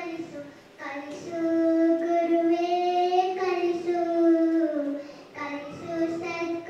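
A young girl singing solo and unaccompanied into a microphone, in long held notes, taking short breaths about a second in and again about five seconds in.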